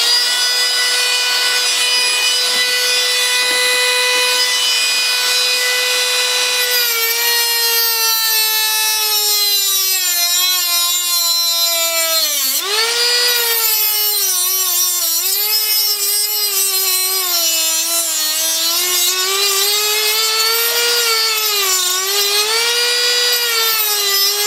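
Handheld rotary tool with a small cut-off wheel cutting a shallow groove into a fishing rod's reel seat, down to the tape bushings underneath. It runs at a steady high whine for the first several seconds. Then its pitch sags and wavers as the wheel bites into the reel seat, dropping sharply about twelve seconds in before picking back up.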